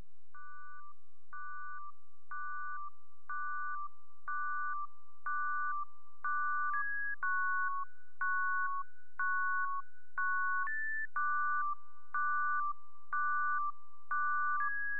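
Background music without vocals: a simple synthesizer melody of clean beeping tones, short two-note phrases repeating about once a second.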